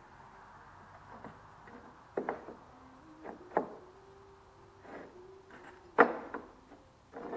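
Irregular wooden knocks and clunks, about six of them, as lumber boards are handled and set against a wooden workbench frame; the loudest comes about six seconds in.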